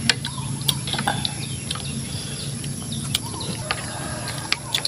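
Eating sounds: scattered sharp clicks and smacks from chewing and from fingers and a plastic fork against a plate, over a steady low hum, with birds chirping in the background.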